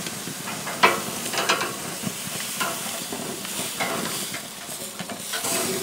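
Ham steaks sizzling on a very hot infrared grill, with a handful of short clinks and scrapes as they are lifted off the grate.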